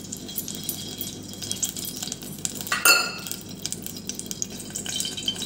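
Metal kitchenware clinking over a faint high hiss, with one louder ringing clink about three seconds in.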